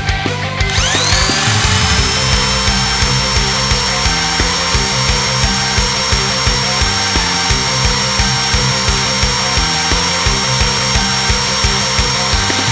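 An electric motor spins up about a second in, a rising whine that settles into a steady high-pitched run, over background music with a steady beat.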